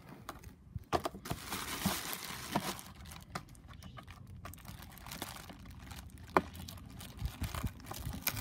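Plastic packaging being handled: a clear plastic sheet crinkling while a corrugated plastic cover is pried open at its taped edge, with a few sharp clicks and taps scattered through.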